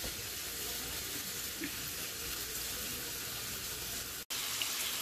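Bacon strips sizzling in a hot frying pan: a steady hiss with a few faint pops, which drops out for an instant about four seconds in.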